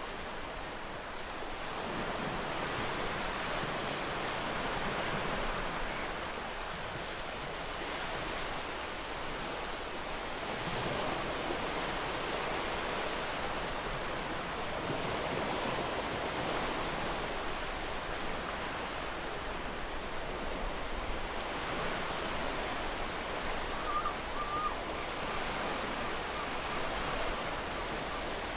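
Ocean surf breaking and washing up a shore: a continuous rush of noise that swells and eases every few seconds as the waves come in.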